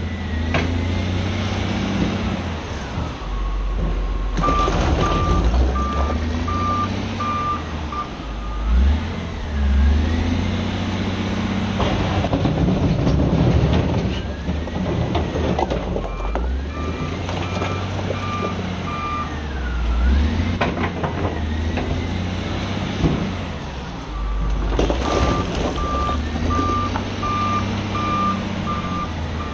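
Cat 966G wheel loader's diesel engine working, revving up and down over and over. Its reversing alarm beeps in three spells, and there are several loud crashes of rock, one longer clattering spell near the middle.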